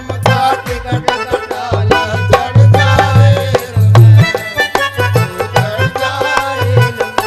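Folk devotional bhajan music: wooden kartal clappers clicking in a quick rhythm and a plucked one-string ektara, over the deep beats of a hand drum.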